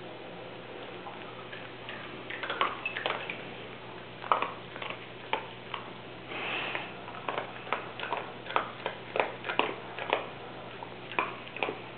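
A small terrier chewing and mouthing something on a rug, with irregular sharp clicks and crackles that start about two seconds in, and a short hissy sniff-like sound around the middle.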